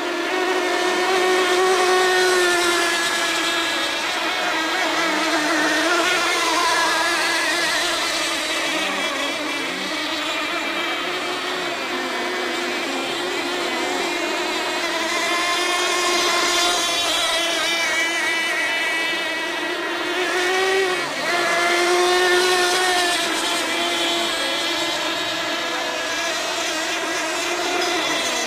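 Several racing tunnel-hull boats running flat out together, a high, whining engine note that wavers in pitch. It swells as boats pass close, about two seconds in and again a little after twenty seconds, with a brief drop and recovery in pitch just before the second swell.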